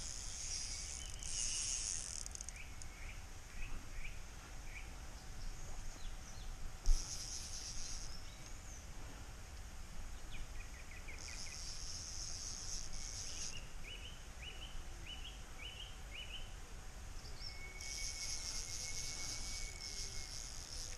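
Insects chirring in repeated bursts of high, dry buzzing, each a second or two long, with short bird chirps in between. A single sharp knock about seven seconds in.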